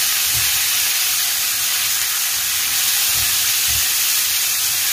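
Bitter melon pieces frying in hot oil in a nonstick frying pan, a steady sizzle, while a spatula stirs them, knocking low against the pan a few times.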